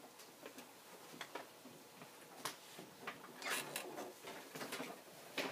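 Quiet classroom with scattered small taps and clicks and brief rustles from students writing and handling things at their desks, with a short burst of rustling about three and a half seconds in.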